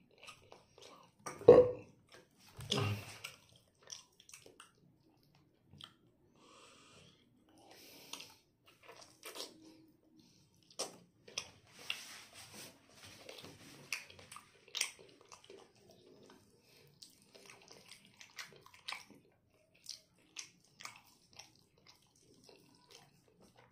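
Close-up chewing and wet mouth clicks of a man eating pork adobo with rice. There are two louder, lower mouth sounds in the first few seconds, then small scattered clicks and smacks.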